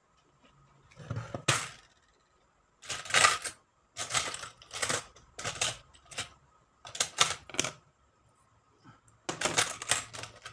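Peso coins clinking and clattering in a plastic tub as a hand rummages through them, in about six short bursts of metallic clicks with quiet gaps between.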